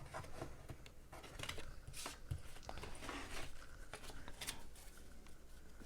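Hockey trading cards being handled and sorted by hand: faint rustling with scattered soft clicks and taps.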